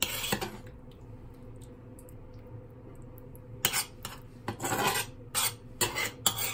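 A metal spoon scraping across a frying pan to gather leftover stuffing: one scrape at the start, then a quick run of scrapes and taps from about three and a half seconds in.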